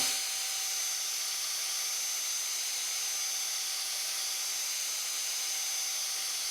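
Rockwell high-speed grinder spinning steadily while its wheel is dressed: a thin high whine over an even hiss.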